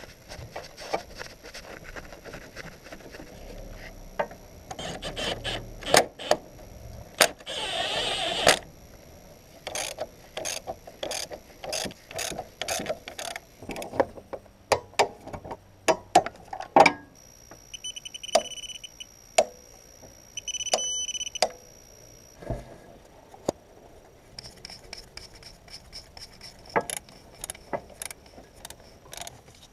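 Workshop sounds of tools and metal parts being handled: a string of sharp clicks and knocks, with a brief dense rattle about eight seconds in and two short high beeps a little past the middle.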